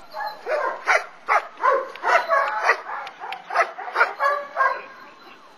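Black dog barking repeatedly at a helper in a hiding blind, about two barks a second, fading near the end: the bark-and-hold of protection training.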